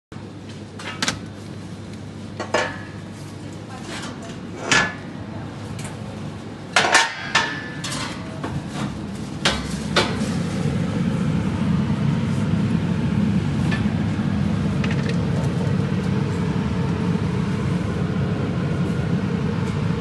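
Shelf panels of a refrigerated display case being lifted out and handled: a series of sharp knocks and clatters in the first half. From about halfway a steady, louder low hum takes over, the case's cooling fan heard close up.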